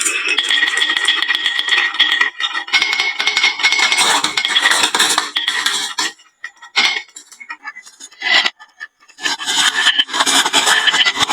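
Marbles rolling and clattering down a wooden slope marble run and dropping into toy trucks: a dense run of clicks and clacks that thins to a few single clicks for about three seconds after the middle, then picks up again.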